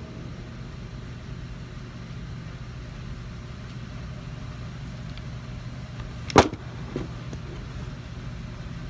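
Steady low hum of an indoor shooting range. About six and a half seconds in comes one sharp knock, then a lighter one half a second later: gear being handled right by the camera.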